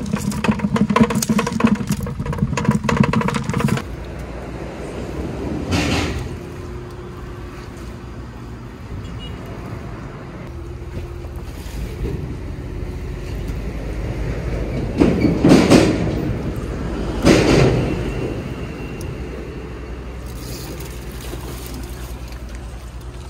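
Wind buffeting the microphone at the shore: a steady low rumble, with a few louder rushes of noise about six seconds in and again around fifteen and seventeen seconds.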